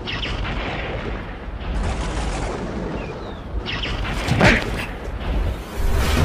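Dramatic film sound effects over a steady low rumble, with one loud sudden burst about four and a half seconds in.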